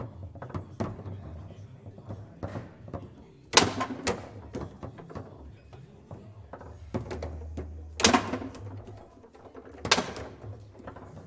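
Foosball table in play: the ball clacking against the rod-mounted men and the table walls in quick scattered knocks, with three loud sharp hits, a few seconds in, past the middle and near the end.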